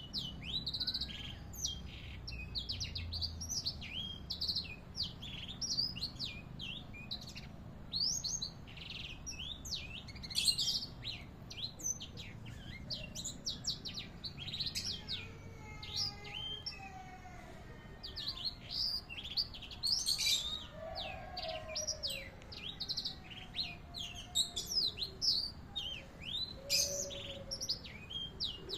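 A sanger, a small finch-like cage songbird, singing a long, continuous run of fast high chirps and trills, with fainter lower whistled phrases woven in through the middle and later part.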